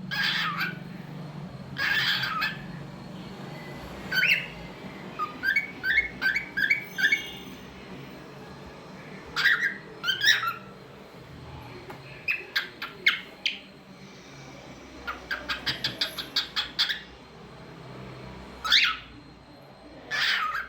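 Cockatiel calling: loud, short, falling squawks every second or two, with runs of quick chirps between them, one a fast series of about ten.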